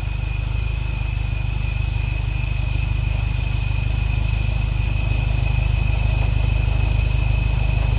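Off-road 4x4's engine running at low revs, a steady low rumble that slowly grows louder as the truck crawls forward through mud. A thin steady high-pitched whine sits over it.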